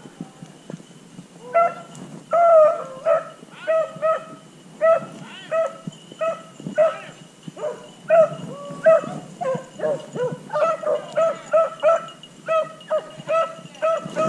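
Rabbit-hunting beagles barking on the chase: short, pitched barks in quick succession, about two to three a second, starting about a second and a half in.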